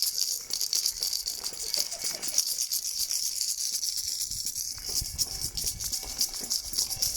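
Neighbours making noise together: a continuous, dense, rapid rattling clatter.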